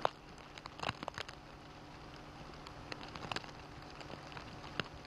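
Heavy wet snow falling: a steady hiss with scattered pattering and crackling ticks, over a faint steady low hum.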